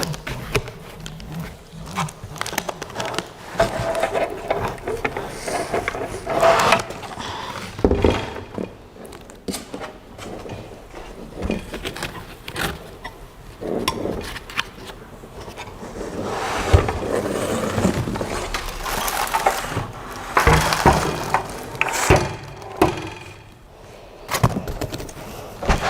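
Irregular rustling, scraping and knocks of packaging and parts being handled as components are worked out of a very tightly packed box.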